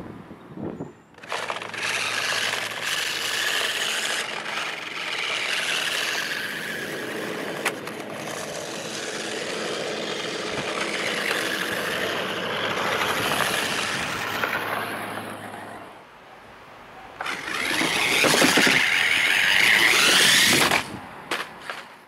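Toy remote-control car's small electric motor and gears whirring as it drives over dirt. The sound drops away briefly about sixteen seconds in, then comes back louder for a few seconds before stopping.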